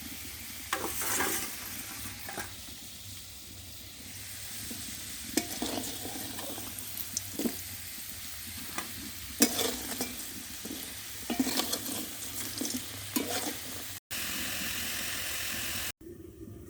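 Potatoes sizzling as they fry in hot oil, with repeated clinks and scrapes of a spatula against the pan as they are stirred and lifted out. Near the end, two seconds of steady, louder hiss start and stop abruptly.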